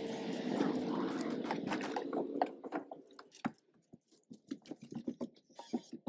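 Scraping and crackling from hands working a clear plastic-framed panel against a motorhome's side wall, dense for about two and a half seconds, then a few scattered light clicks.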